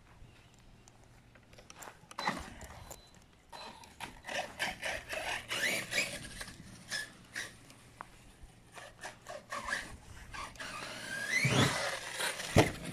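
Arrma Outcast 6S RC truck's brushless electric motor whining in short bursts as it is throttled across grass, with rising whines as it speeds up, the loudest about eleven seconds in. A sharp thump comes near the end.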